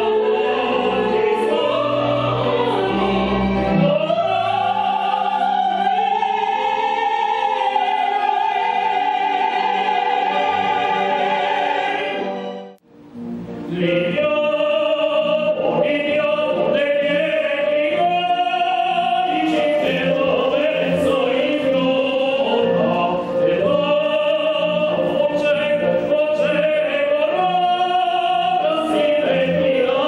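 Live operatic singing by a man and a woman with musical accompaniment, long held notes with vibrato. The music drops out briefly about 13 seconds in, then resumes.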